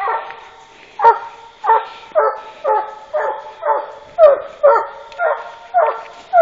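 A coon dog barking in a steady run, about two barks a second, each bark short and dropping in pitch: a hunting dog's chop bark at a treed raccoon.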